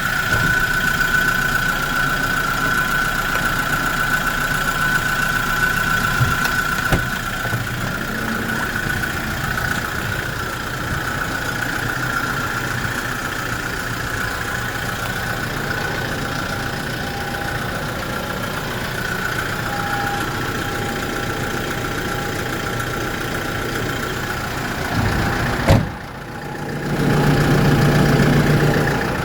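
Kia Bongo refrigerated truck's diesel engine idling steadily, with a steady high whine over it. Near the end comes a sharp knock and a brief drop in level, then a louder, deeper hum.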